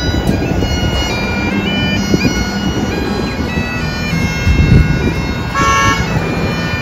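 Highland bagpipes playing a tune, the chanter's melody stepping from note to note over the steady drones. Road traffic rumbles underneath, with a car passing close near the end.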